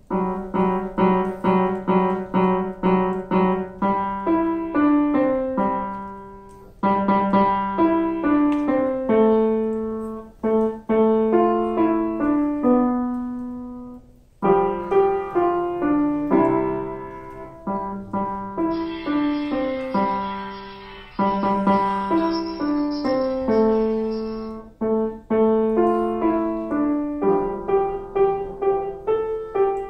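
Grand piano played solo: a classical piece in quick runs of single notes, with a short pause about halfway through before the playing picks up again.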